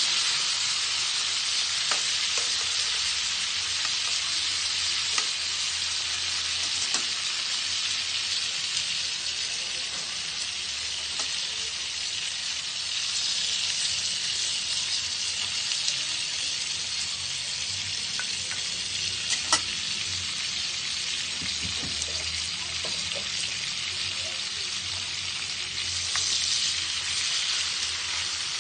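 Pork chops sizzling as they cook: a steady hiss of spattering fat, with a few sharp pops, one louder about two-thirds of the way through.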